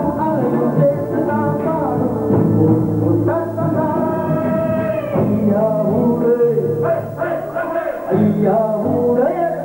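A song: a singer's melody with long held notes over steady instrumental backing.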